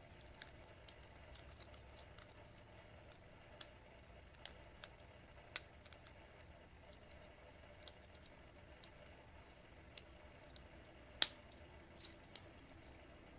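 Scattered small, sharp clicks and taps of a plastic wire connector and wires being handled while the light fixture is rewired, over quiet room tone. The two loudest clicks come near the end.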